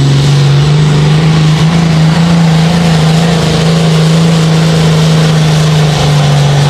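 Modified, turbocharged, straight-piped six-cylinder diesel engine of a John Deere 4020 pulling tractor at full throttle, dragging the weight sled. It runs loud and steady, its pitch stepping up slightly about half a second in and then holding.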